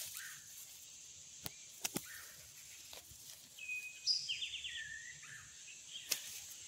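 A bird chirping a quick run of short high notes around the middle, over a steady high insect drone. A few sharp clicks are scattered through, the loudest about a second and a half and two seconds in and again near the end.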